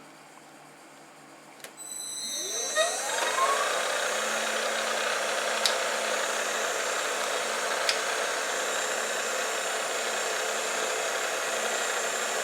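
A Jet 836 Bridgeport-clone milling machine's spindle motor is switched on about two seconds in. It spins up with a rising whine, then runs steadily with a few light clicks, ready to drill the next holes around the ring.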